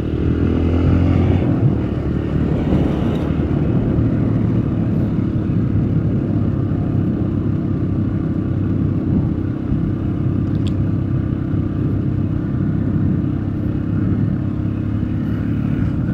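Engine and road noise of a vehicle under way, heard on board: a steady drone over tyre and wind noise, the engine pitch climbing a little in the first couple of seconds as it overtakes.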